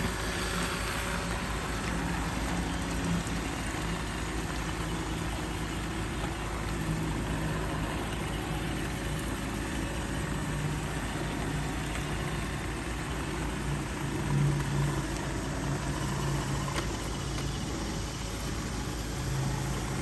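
Two robot vacuum cleaners, an iRobot Roomba and a Lubluelu, running together: a steady motor hum and whir from their fans and brushes.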